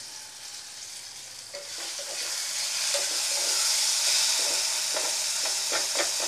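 Potatoes, tomatoes and onions sizzling in hot oil in a kadai, the sizzle growing louder about two seconds in as a spatula stirs them, with a few short scrapes of the spatula against the pan near the end.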